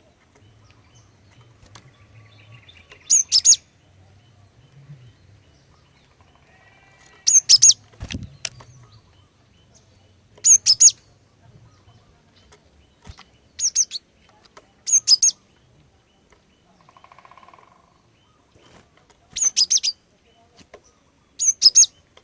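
Female cinereous tit (glatik batu) calling: short, high-pitched clusters of two or three quick notes, repeated about every two to four seconds. There is one soft low thump about a third of the way through.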